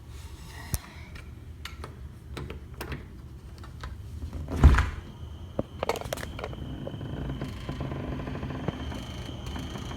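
A back door being unlocked and opened: scattered small clicks and rattles, a loud thud about halfway through, then sharper clicks, followed by a faint steady high tone.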